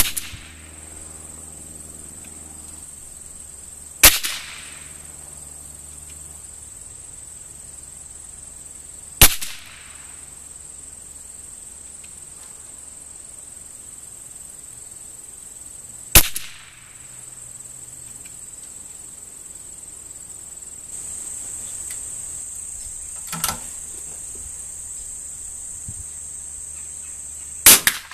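.22 rimfire rifle firing single shots at a matchstick target, a sharp crack with a short echo every four to seven seconds, one fainter crack between the last two. Insects chirr in a steady high drone throughout.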